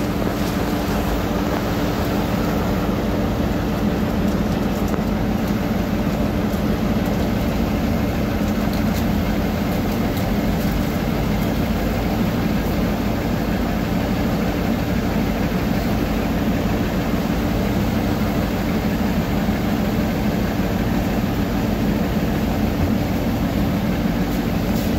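Steady low hum of a 1993 YuMZ-T2 trolleybus's onboard machinery, heard from inside the cabin while it stands at a stop.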